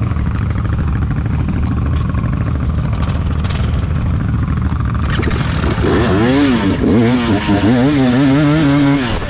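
Quad bike (ATV) engine running, then revving up and down repeatedly over the last few seconds.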